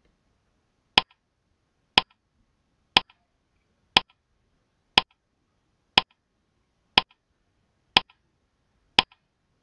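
Countdown-timer clock-tick sound effect: sharp ticks exactly once a second, nine in all, each with a faint echoing click just after.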